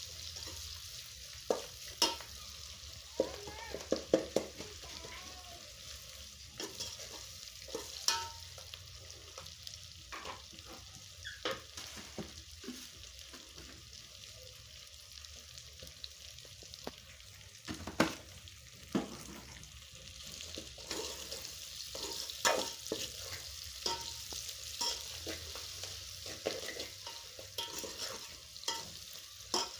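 Food sizzling as it fries in a metal pan over a charcoal stove, with a spoon stirring and scraping and knocking against the pan in irregular clicks, a few of them sharply louder.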